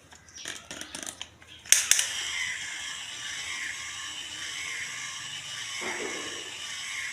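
Light clicks and rustles of a plastic toy being handled, then a sharp click about two seconds in, followed by a steady, wavering electronic sound that carries on to the end.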